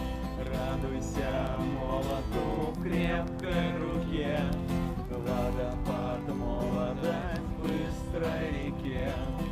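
Music: an acoustic guitar strumming, with a melody line above it.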